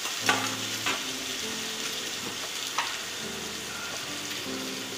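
Chopped tomatoes and onions sizzling as they fry in a steel pan, stirred with a spatula that knocks against the pan a few times, loudest about a third of a second in.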